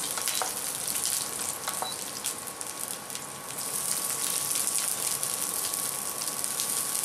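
Sliced onions sizzling in hot oil in a stainless-steel kadai: a steady hiss with small crackles, while shredded cabbage is dropped in by hand. A faint steady high tone runs underneath.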